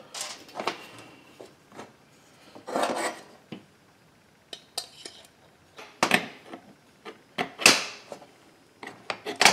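Metal tools and chainsaw crankcase parts clinking and rattling on a workbench as the two crankcase halves are brought together. The clinks are scattered, the loudest about six and again about eight seconds in.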